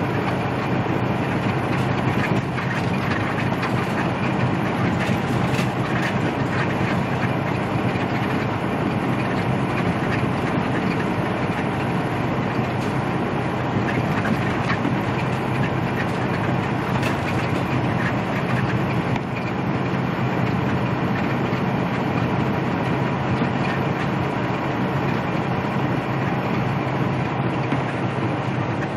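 Steady in-cab drone of a big rig at highway speed: engine hum and tyre noise on a wet road, with light rattles and clicks from the cab.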